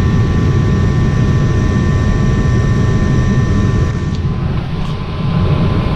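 Lennox ML193 gas furnace running with a steady loud whir and hum, its motors and air movement carrying a few faint steady tones; the level dips slightly about four seconds in.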